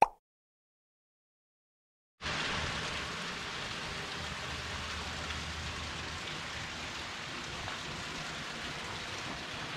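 About two seconds of dead silence at an edit, then steady outdoor street ambience: an even hiss with a faint low hum for a few seconds after it returns.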